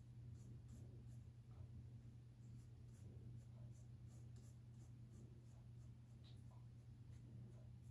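Faint, light strokes of a flat paintbrush flicking paint onto a stretched canvas, over a steady low hum.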